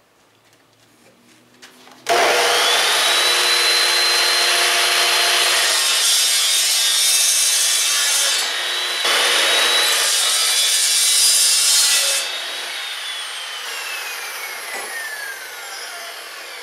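Metal-cutting chop saw starting up about two seconds in and cutting through a metal tube, its motor whine rising to a steady high pitch over the grinding of the cut. It drops briefly and comes back up for a second pass, then is let go and spins down with a long falling whine.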